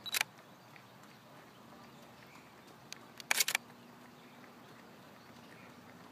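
DSLR shutter firing: a double click right at the start, then a quick burst of about four frames about three seconds in.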